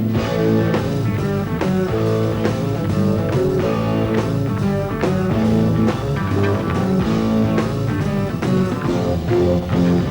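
Rock band playing an instrumental passage, with electric guitar over a steady beat and no vocals.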